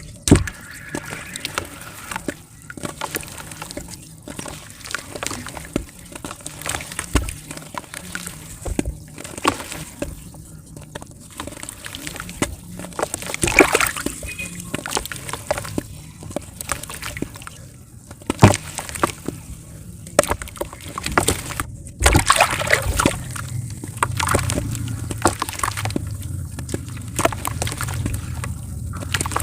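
Lumps of multani mitti (Fuller's earth clay) crumbling and dissolving in water: sloshing and splashing with many small crackles and pops.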